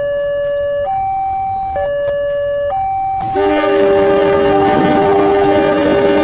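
Railway level-crossing warning alarm alternating between two notes, low and high, each held just under a second. About three seconds in, a train's horn chord and the noise of the approaching train come in loudly over it.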